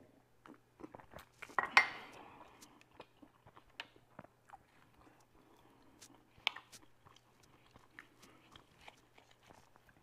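Eating sounds close to the microphone: chewing, with small clicks and scrapes of a table knife on a plate as a sausage is cut. A louder clatter comes about two seconds in.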